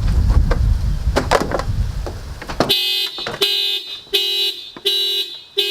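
Low rumble with a few sharp clicks, then about two and a half seconds in the car's alarm goes off: the horn sounds in repeated short honks, about one every three quarters of a second. The alarm has been set off by the door being opened with a reaching rod instead of a key.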